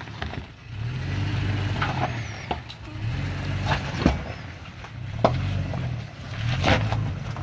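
Toyota Tacoma pickup's engine running at low crawling speed, its note rising and falling with the throttle as the truck climbs over loose rock. Several sharp knocks and crunches of rocks shifting and striking under the tyres.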